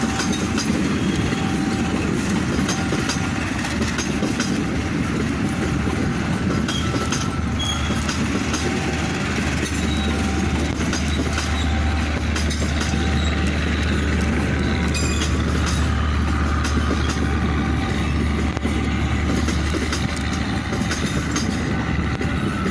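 Passenger train coaches rolling slowly past at walking-pace junction speed, the wheels clicking over rail joints and points under a steady rumble. A steady low hum sets in about a third of the way through and fades near the end.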